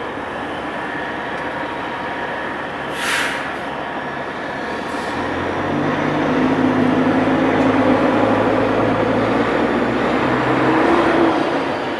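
City street traffic noise, with a short hiss about three seconds in. From about five seconds in, a heavy vehicle's engine rumbles close by for roughly six seconds, then fades.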